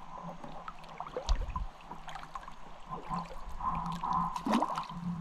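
Shallow creek water sloshing and gurgling, with small splashes and a dull knock about a second in. A steady low hum runs underneath, with a higher steady tone swelling near the end.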